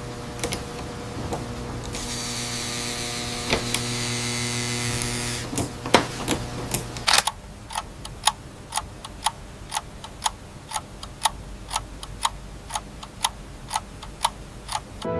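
A steady mechanical hum with scattered clicks, which stops about seven seconds in and gives way to a regular train of sharp ticks, about two and a half a second.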